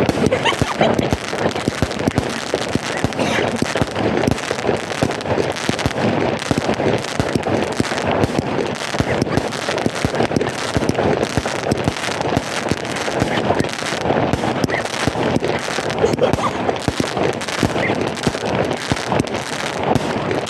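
Fireworks salute going off in a dense, continuous barrage of rapid bangs and crackles with no pause.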